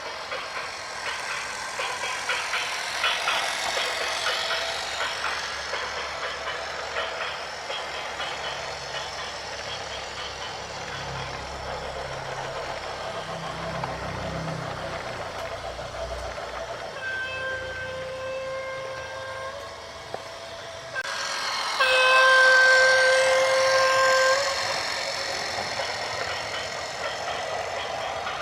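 Heavy vehicle rumbling and clattering, then a horn sounding twice: a quieter blast of about three seconds past the middle, and a louder one of about three seconds near the end.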